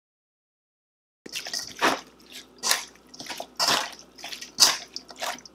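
Metal spoon mixing raw chicken with chopped vegetables and seasonings in a stainless steel bowl, in wet strokes about once a second that start after a second of silence.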